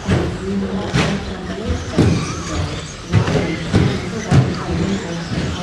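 Radio-controlled short course trucks racing on an indoor track: motors and tyres running, with sharp knocks about once a second as the trucks hit the track and its boards.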